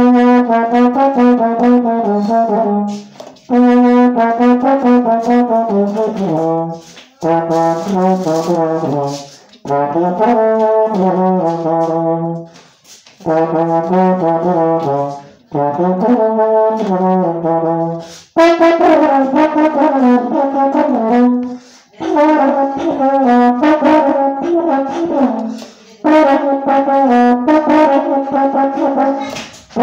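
Silver three-valve baritone horn playing a solo melody, phrases of quick notes moving up and down, broken every three to four seconds by short pauses for breath.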